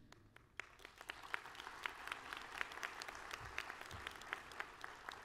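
Audience applauding: many scattered claps that start about half a second in and keep on, fairly faint.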